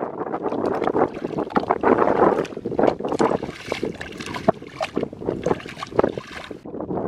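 Bare feet wading through shallow liquid mud, with irregular sloshing, sucking and splashing steps.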